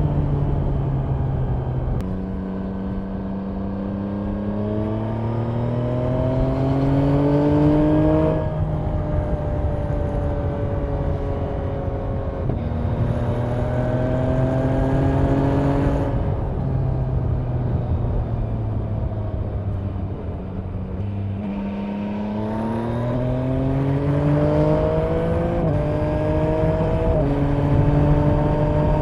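Yamaha MT-09's 890 cc inline-three engine through an Akrapovic exhaust with the dB-killer in, under way with wind noise. Its pitch climbs several times under throttle and steps down sharply at gear changes, falls away slowly for a few seconds midway as the throttle eases, then climbs again with two quick upshifts near the end.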